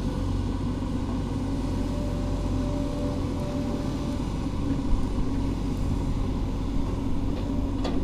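A steady low engine rumble.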